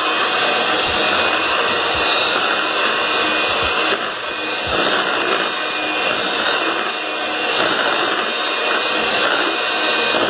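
Electric hand mixer running steadily, its beaters whisking thick cake batter in a bowl, with a slight dip in level about four seconds in.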